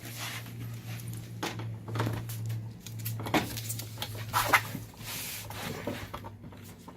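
Metal TV stand parts being handled and fitted together: irregular clinks, knocks and scrapes over a steady low hum.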